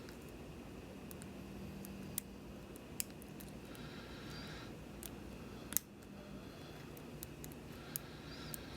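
Lock picking on a pin-tumbler lock, likely a Schlage: faint, irregular small clicks and light scraping as the pick and tension wrench work the pins, with one sharper click a little before the 6-second mark.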